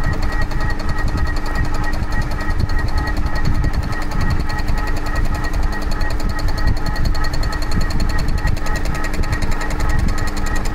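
Cylinder-head skimming machine running, its rotating multi-tooth cutter milling across the gasket face of a Vauxhall aluminium cylinder head on a roughing pass. A steady machine hum with a fast, even chatter from the cutting.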